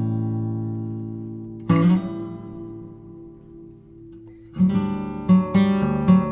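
Background music on acoustic guitar: a strummed chord rings out and fades, then about four and a half seconds in a rhythmic picked pattern begins.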